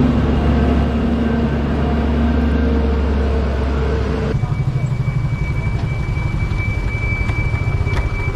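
Mobile crane engine running with a steady drone. About four seconds in it changes abruptly to a lower, pulsing engine rumble with a steady high-pitched whine over it.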